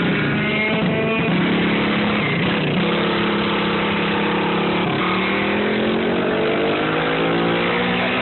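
Race car engine running hard at high revs, with its pitch climbing steadily over the last few seconds as it accelerates.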